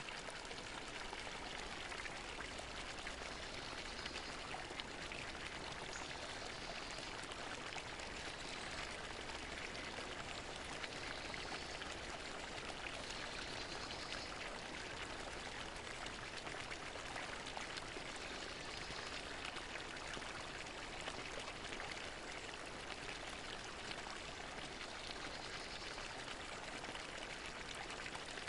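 Water fountain splashing and pouring steadily into its basin, an even, unbroken rush of falling water.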